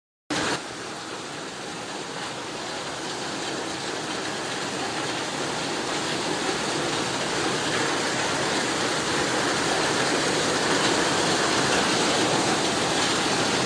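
Fast-flowing floodwater rushing past under heavy rain: a dense, steady rushing noise that starts just after a brief moment of silence and grows gradually louder.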